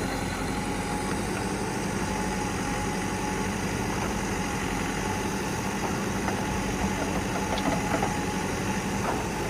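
Diesel engine of heavy machinery running steadily at a low, idle-like speed, with a few faint knocks about seven to eight seconds in.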